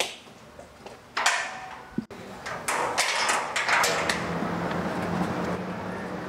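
A barred metal cell door slides with a clank and ringing scrape about a second in. After an abrupt break, street noise follows, with a steady low hum and a few clicks.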